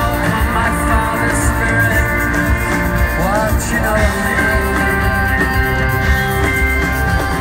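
A rock band playing live, heard from the crowd in an arena. Steady, loud full-band music with a constant bass underneath and sustained, bending melodic lines over it.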